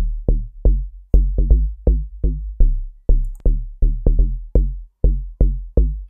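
Deep house FM-style bass patch on the Serum software synthesizer playing a looping bass line of short, plucky notes, about three a second, the pitch changing from note to note. Each note starts with a sharp, clicky attack whose brightness fades quickly over a deep low end: an envelope on the filter cutoff.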